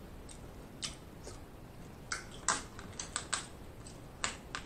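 Snow crab shell cracking and snapping in the hands, a string of sharp clicks, most of them bunched together in the middle.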